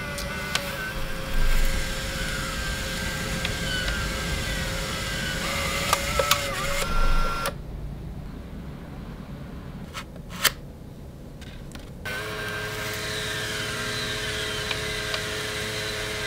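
Fujifilm Instax Mini Link printer running its small motor, whirring steadily as it prints and feeds out a sheet of instax mini film, with a few small clicks. About halfway through the whirr drops away for about four seconds, then starts again.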